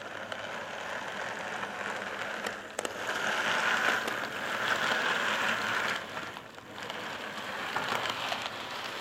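HO-gauge model of a Kintetsu limited express train running past on sectional track: a steady hissing rattle of wheels on rails, loudest in the middle as the cars pass close, with a brief dip about six and a half seconds in.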